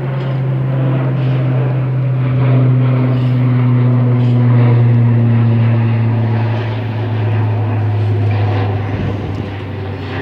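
Twin-engine airliner passing overhead: a strong, steady low engine drone that slides slowly down in pitch as the plane goes by. It is loudest midway and eases off toward the end.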